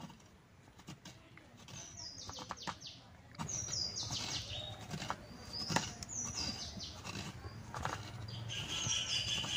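Half a coconut being scraped by hand against the toothed blade of a coconut grater, a run of rasping strokes that grows louder after about three seconds. A bird calls near the end.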